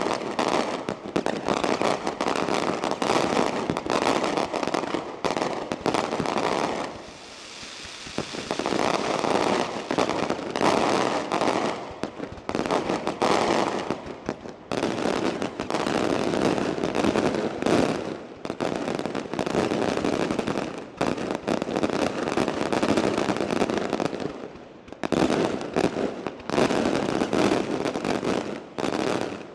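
Daylight fireworks battery: a dense, continuous rattle of many small aerial bombs bursting in rapid succession, easing briefly to a hiss about seven seconds in before the bursts pick up again.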